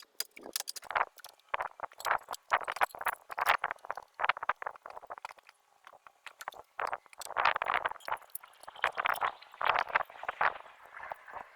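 Irregular clicks, clinks and scrapes of metal hardware being handled and fitted, with a denser stretch of clattering about two-thirds of the way through.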